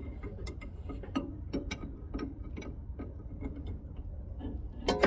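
Hand ratchet wrench clicking in short strokes, several clicks a second, with a louder metallic clank near the end.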